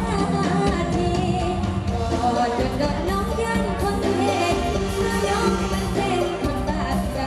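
Live band playing an Isan mor lam song through a PA, with a woman singing the lead over a steady drum beat.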